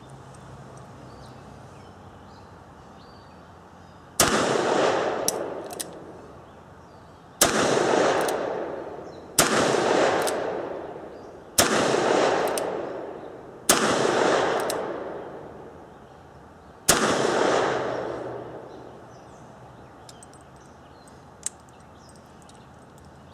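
Six single shots from a Ruger Blackhawk .357 Magnum single-action revolver firing .38 Special loads, spaced about two to three seconds apart. Each shot is followed by an echo that fades over a second or so. There is one small click near the end.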